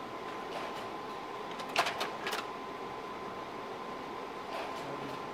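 Steady mechanical whirr with a thin constant high tone, broken by a few sharp clicks about two seconds in and once more near the end.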